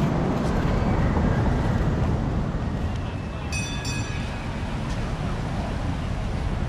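Busy beach ambience: a steady low wind rumble on the microphone with the murmur of distant voices. A short high-pitched double tone sounds about three and a half seconds in.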